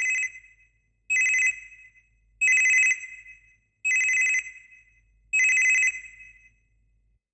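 Telephone ringing: short, high beeping rings, each about half a second long with a brief fading tail, repeating about every one and a half seconds, five times after one already sounding at the start.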